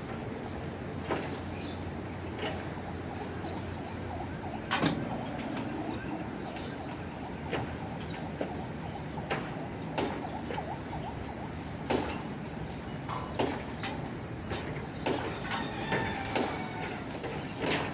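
Fully automatic washing machine running a wash cycle: a steady running noise with irregular clicks and knocks every second or two.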